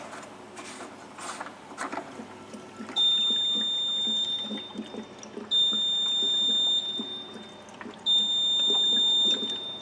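Three long, high electronic beeps about two and a half seconds apart, each lasting over a second, over the gurgle of green coolant being poured from a plastic jug into the engine's cooling system.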